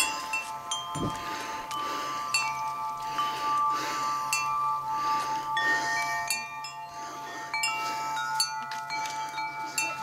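Wind chimes ringing in the breeze: irregular strikes at several different pitches, each tone ringing on for a few seconds and overlapping the next.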